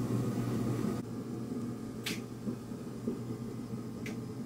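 A sharp click about two seconds in and another near the end, over a steady low hum: plastic turn-signal wiring-harness connectors being handled and pushed together.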